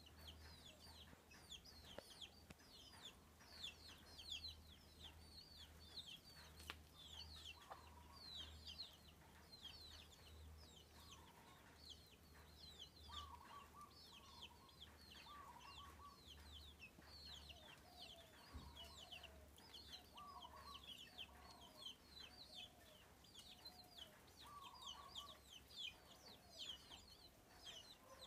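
A brood of half-grown chicken chicks peeping faintly and constantly in short, high, falling notes, with a hen's soft, lower clucks coming in now and then from about eight seconds in.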